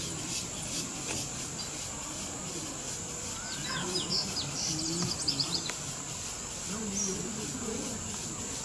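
Tropical forest ambience: insects keeping up a steady high drone, with a short run of bird chirps about four to five seconds in and faint distant voices underneath.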